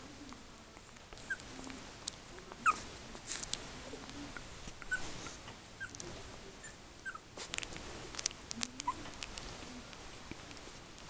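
Three-week-old Yorkshire Terrier puppies whimpering: brief high squeaks, some falling in pitch, every second or so, among scattered soft clicks.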